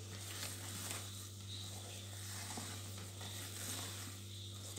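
Spatula stirring and folding thick cake batter in a plastic bowl: soft, irregular wet swishes and scrapes against the bowl, over a steady low hum.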